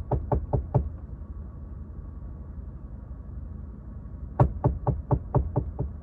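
Someone knocking on a semi truck's cab from outside, heard from inside the sleeper berth: a quick run of knocks right at the start, then a second run of about eight rapid knocks from about four and a half seconds in, over a steady low hum.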